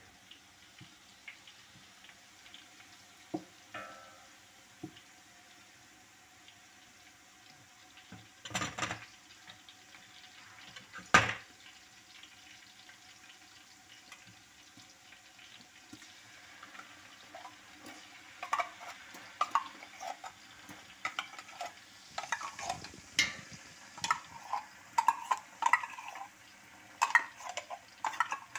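Sliced onions frying in oil in a stainless steel pot, stirred with a wooden spoon: a faint sizzle under scattered knocks of the spoon on the pot. There are two loud knocks about 9 and 11 seconds in, then a quick run of clicks and scrapes over the last third.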